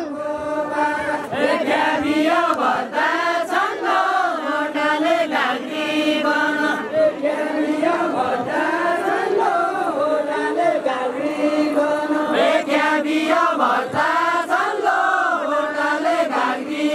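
Many voices singing a Deuda folk song together, a chanted group refrain that runs without a break.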